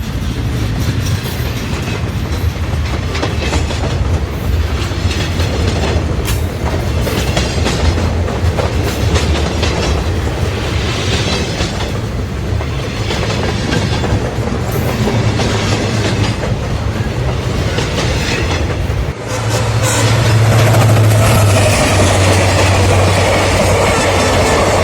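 Train running along the rails: a steady rumble with the knocking clickety-clack of wheels over the rail joints. About 19 seconds in the sound dips abruptly and comes back louder and brighter.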